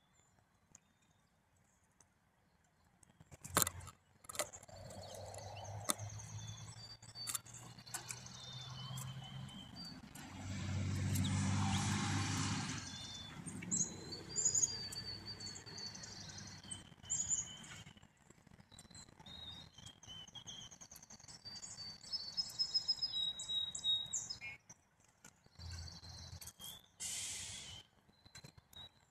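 Small songbirds chirping and calling in short high notes again and again. A rush of noise with a low hum swells for a few seconds around the middle.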